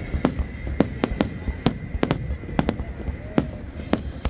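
Aerial fireworks bursting: about ten sharp bangs in quick, irregular succession over a continuous low rumble.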